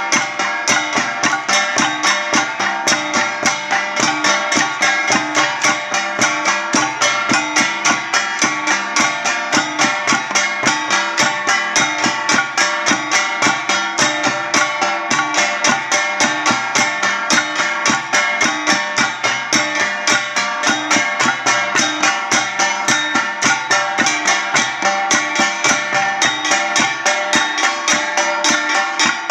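Traditional Ifugao folk music: a fast, steady beat of struck percussion over ringing tones, played without a break.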